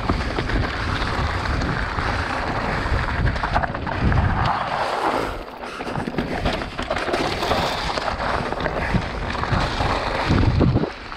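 Mountain bike rolling fast down a loose, stony dirt trail: a steady crunch and rumble of knobby tyres on gravel and rock, with many small knocks and rattles from the bike over bumps. It eases briefly about halfway through and again near the end.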